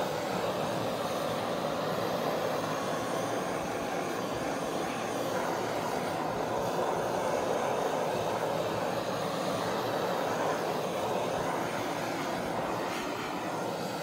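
Handheld gas torch running steadily with a continuous flame roar as it is passed over wet acrylic pour paint.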